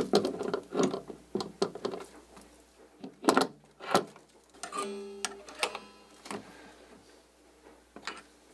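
Metal parts of a small railway bogie and its brake linkage clicking and clinking as they are handled and fitted, with two louder knocks around the middle and a brief metallic ring soon after.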